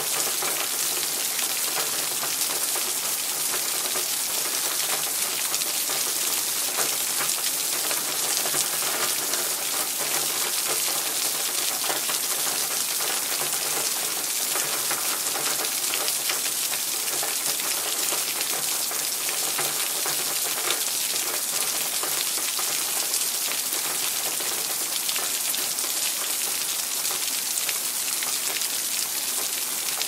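Rain falling and dripping steadily: a dense, even wash of many small drops, each landing as a fine tick.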